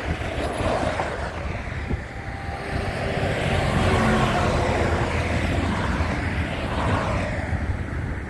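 Road traffic driving past close by, with a semi truck passing in the middle: its diesel engine and tyres swell up a few seconds in and fade out again near the end.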